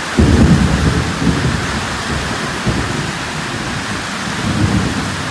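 Heavy rain pouring down steadily, with a roll of thunder that breaks in just after the start, is loudest at first, and rumbles on with a couple of weaker swells.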